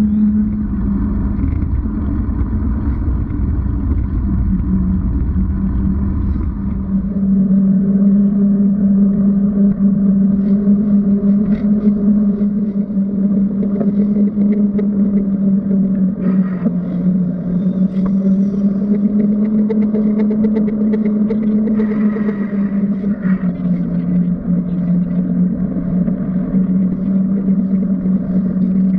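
Steady, muffled droning hum with a slightly wavering pitch over a low rumble: wind and road vibration of a moving bicycle, heard through a GoPro sealed in its waterproof case.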